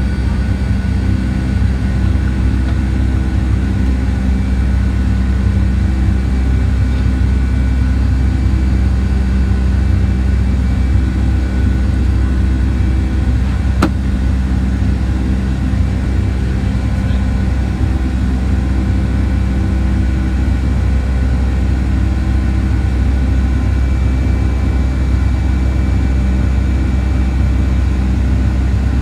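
Cabin noise inside a Boeing 757-200 climbing after takeoff: a steady low drone from its Pratt & Whitney engines and the airflow, carrying several steady engine tones, with one brief click about halfway through.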